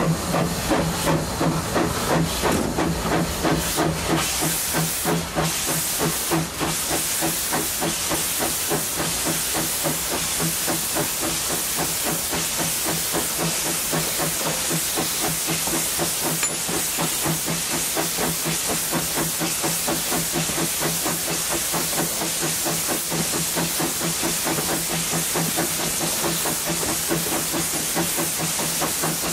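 Narrow-gauge steam tank locomotive ÖBB 298.52 working under steam, with a rhythmic chuff from its exhaust over a constant hiss of steam. The beats quicken over the first several seconds, then run on fast and even as the train gathers speed.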